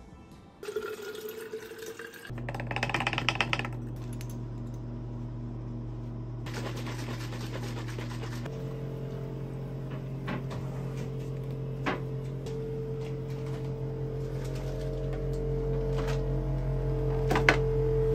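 A green drink poured from a bottle into a drinking glass, with liquid splashing as the glass fills, over a steady low hum.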